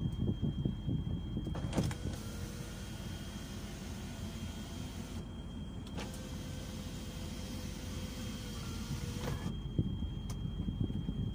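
Electric sunroof motor of a 2008 SsangYong Rexton running with a steady whine in two runs. It starts with a click about two seconds in, shifts slightly in pitch at another click about six seconds in, and stops with a click near the end.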